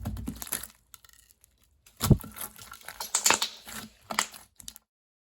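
Slime being handled, squished and poked, giving off irregular wet clicks and pops, loudest about two seconds in.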